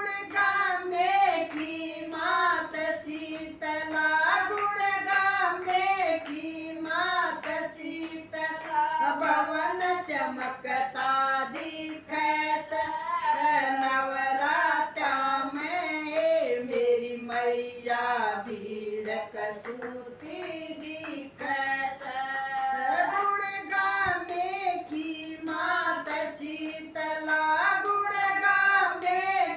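Women singing a devotional bhajan together without instruments, clapping their hands to keep time.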